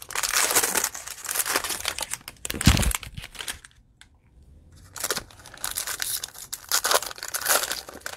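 Plastic cello wrapper of a Prizm football trading-card pack crinkling and tearing as it is pulled open and the wrapped stack of cards inside is peeled out. The rustling comes in two bouts with a short lull between, and there is a dull thump nearly three seconds in.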